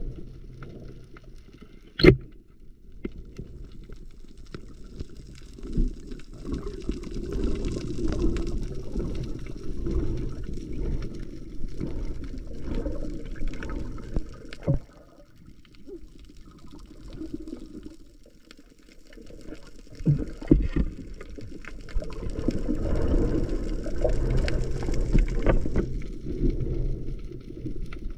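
Muffled underwater rush and gurgle of water moving over a submerged camera as it is carried through the water, swelling and fading in surges, with a sharp click about two seconds in and a few fainter knocks.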